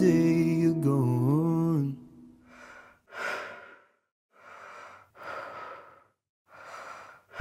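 A song ends with a held, bending note over the first two seconds. Then a person breathes softly about five times, short airy breaths roughly a second apart.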